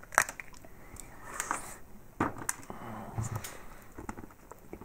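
A hollow milk-chocolate phone figurine being bitten and broken: a handful of sharp snaps and crunches, with a brief low hum about three seconds in.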